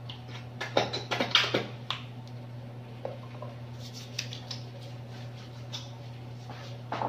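Hands being sanitized: a quick run of rustling and small clicks about a second in, then a few faint ticks.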